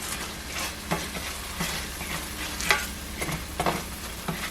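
Garlic and ginger sizzling in a little oil in a skillet over low to medium heat, stirred with a utensil that knocks and scrapes against the pan about six times.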